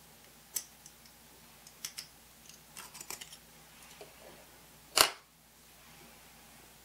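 Scattered small, sharp clicks and taps of hobby tools and small model parts being handled, with one much louder click about five seconds in.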